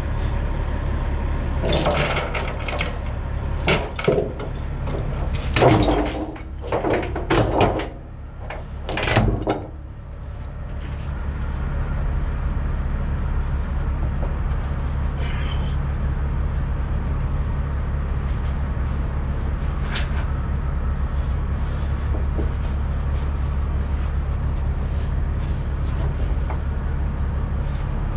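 Steel tie-down chain clanking and rattling against the trailer's wooden deck and the truck's underside, several sharp clanks in the first ten seconds, over a steady low rumble that runs throughout.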